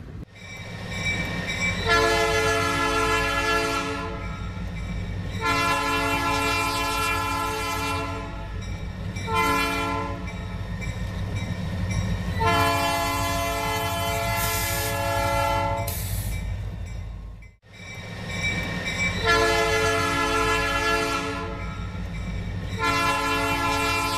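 Diesel locomotive air horn, on the lead GE ES44AC, sounding the long-long-short-long grade-crossing signal over the rumble of the passing train. After a brief break the horn starts the pattern again with two more long blasts.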